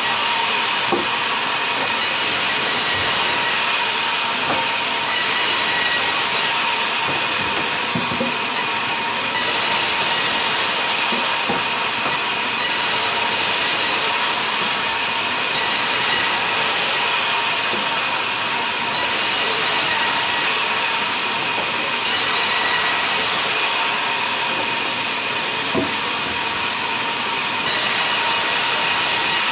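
Sawmill vertical band saw cutting through a log that is fed into it by hand: a loud, steady hissing whine whose upper hiss swells and eases every couple of seconds.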